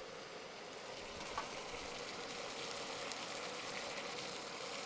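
A stir-fry sizzling in hot oil in a pan: a steady crackling hiss.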